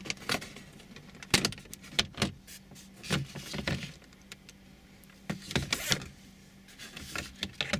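Plastic trim clips of a Vauxhall Corsa D's dashboard display surround snapping free as the panel is pried up: about ten sharp clicks and creaks in small bunches.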